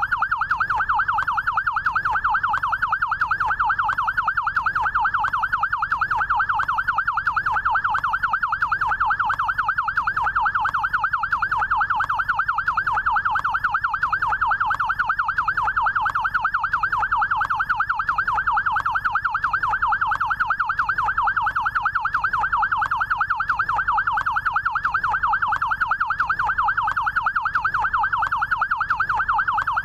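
Electronic yelp siren of a SAMU rescue motorcycle: a fast, steady up-and-down warble, repeating several times a second without a break.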